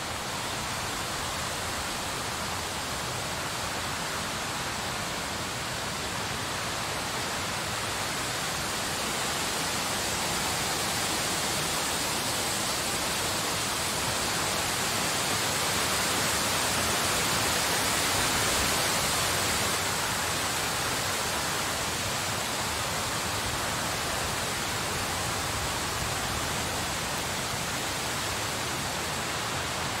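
Steady snowstorm wind: an even rushing hiss that swells gradually toward the middle and eases off again.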